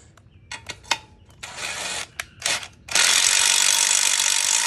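Ratchet wrench screwing a 1/4 inch bolt into a small engine's block: a few clicks, two short bursts of ratcheting, then a long loud run of ratcheting that stops abruptly.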